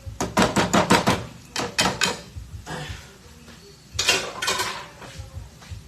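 A cooking utensil clattering and scraping against a frying pan. There is a fast run of about seven strokes in the first second, a few more around two seconds in, and another cluster about four seconds in.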